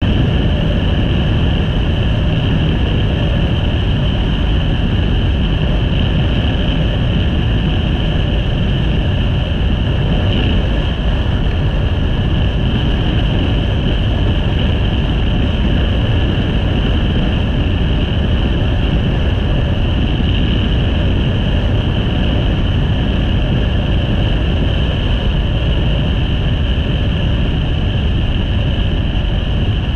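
Motorcycle cruising steadily on the open road: constant wind rush on the microphone with the engine and tyre noise running underneath, holding level without revving or gear changes.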